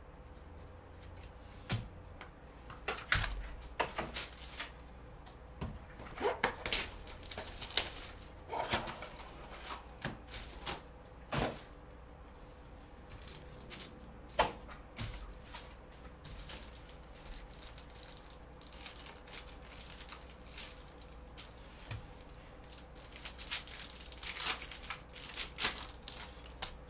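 Gloved hands handling trading cards and packaging: scattered clicks and rustles of a rigid plastic top loader and cards, then a dense run of crinkling near the end as a foil card pack is torn open. A faint steady hum runs underneath.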